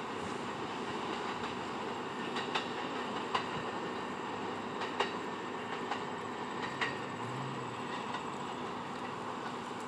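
New York City Subway train running away down the line with a steady rumble. Its wheels give a handful of sharp clacks over the rail joints.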